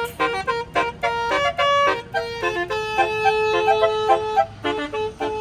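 Bus telolet horn, a Basuri multi-tone melody air horn, playing a quick tune of short notes with one longer held note in the middle.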